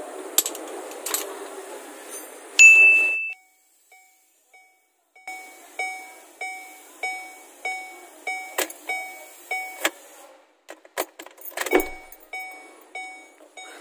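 Chevrolet Trailblazer's dashboard warning chime with the ignition switched on: one loud beep, then a regular run of dings about two a second, each fading quickly. A few sharp clicks and a thump follow near the end.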